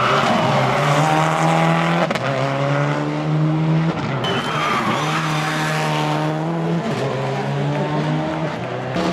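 Rally car engines revving hard under acceleration, the pitch climbing and dropping back with each gear change every second or two, with tyres squealing and skidding as the cars slide through the turns.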